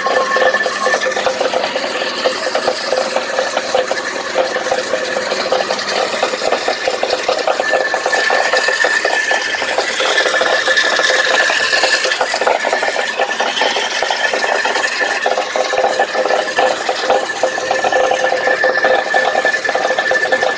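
Hyundai Sonata (third generation) engine running with a rapid, steady clatter: the knock the owner is asking about, its cause unknown to him.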